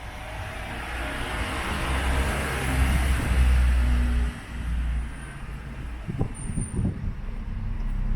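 A heavy road vehicle's engine rumbling as it drives past, swelling to its loudest about three seconds in and then fading away.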